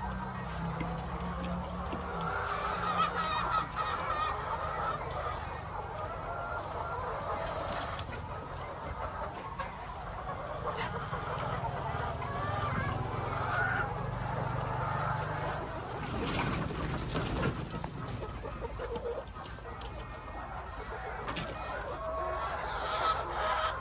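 A flock of egg-laying hens clucking continuously, with many overlapping calls over a steady low hum.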